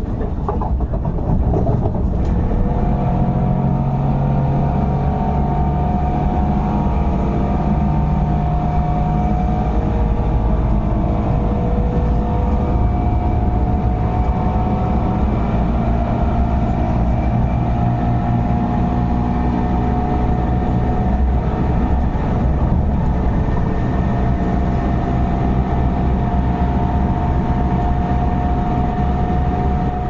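MTR Tuen Ma Line C-train running, heard from inside the car: a loud, steady drone with several whining tones that drift slightly upward, over wheel-and-rail rumble. This is the very loud, annoying strange noise this train makes when accelerating.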